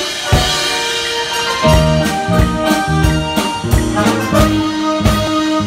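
Live band playing the instrumental intro of a song: a held keyboard melody over a steady drum beat.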